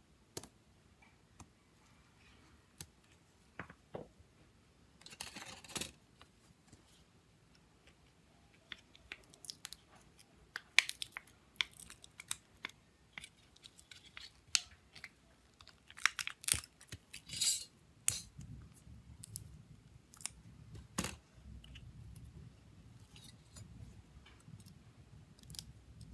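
Small clicks, taps and scrapes of metal tweezers and gloved fingers working on a phone's opened frame and circuit board, with two longer scraping, rustling stretches, the second near two-thirds through as a sheet of adhesive is handled.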